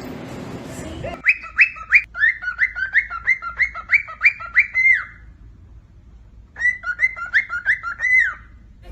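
A bird calling in two runs of short, repeated whistled notes, about two or three a second, with a pause of a second or so between the runs.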